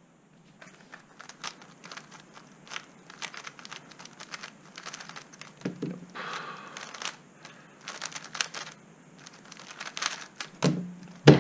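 GAN 356 X magnetic 3x3 speedcube being turned fast through a solve: a quick, irregular run of light plastic clicks and clacks, ending in a sharp knock near the end.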